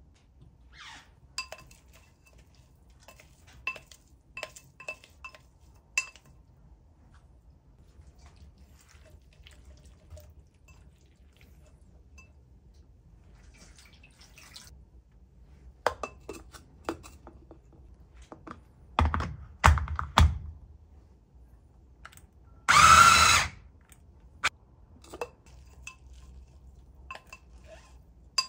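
Kitchen handling sounds: scattered light clinks of utensils and dishes, with a cluster of heavier knocks about two-thirds of the way in. Soon after comes a short rush of noise lasting about a second.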